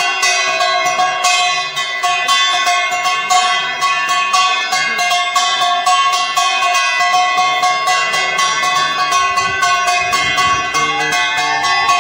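Music: steady held tones over a fast, even run of sharp strikes, many a second, with no speech.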